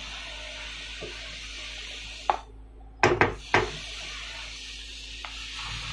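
A wooden spatula knocked sharply against the rim of a nonstick frying pan four times in quick succession, a little over two seconds in, over a steady hiss.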